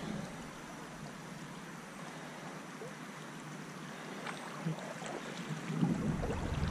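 Flowing river water rushing and rippling steadily around a wading angler. Low wind buffeting on the microphone builds up near the end.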